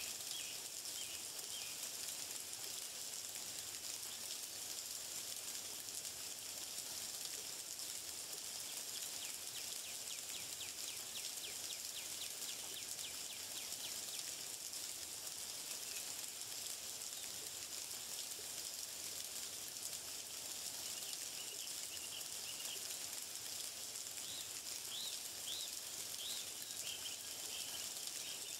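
Outdoor nature ambience: a steady high hiss with a few birds chirping briefly at the start and again near the end.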